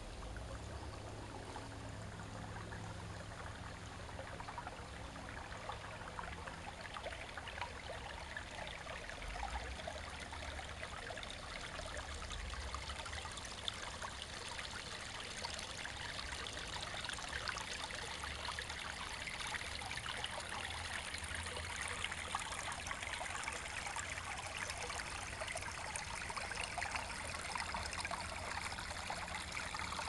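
Small woodland creek running over rocks: a steady rush and trickle of shallow water that grows gradually louder.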